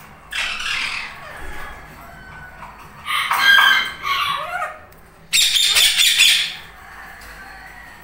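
Indian ringneck parakeets giving harsh squawking calls in three bursts. The first is short, and the two later ones, about three and five seconds in, are longer and louder.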